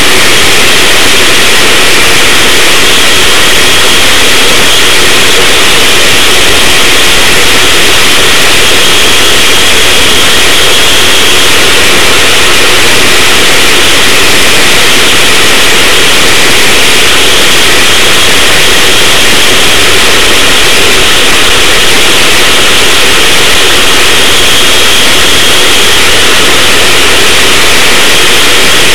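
Racing go-kart's small engine running at speed with wind rush, picked up by the onboard camera so loud that it is overloaded. It comes through as a harsh, distorted, steady hiss-like drone with no clear changes.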